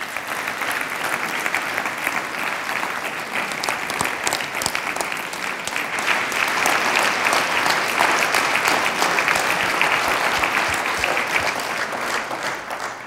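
A large audience applauding: dense, steady clapping from many hands that dies away near the end.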